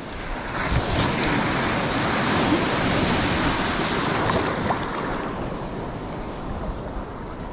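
Small sea waves breaking and washing in whitewater around a wading angler in shallow water, a dense rushing surf noise that is loudest in the first few seconds and eases a little near the end.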